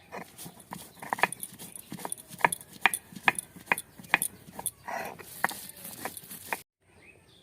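Chillies being ground on a Bengali shil, the flat grinding stone, with its stone roller (nora): knocks and scrapes of stone on stone, about two to three strokes a second. The strokes stop suddenly near the end.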